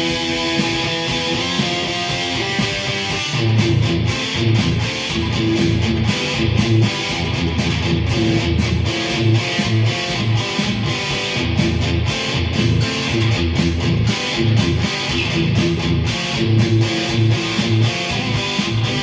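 Squier Sonic electric guitar with new pickups, played through an amp with a little overdrive: held chords at first, then a rhythmic picked and strummed riff comes in about three and a half seconds in.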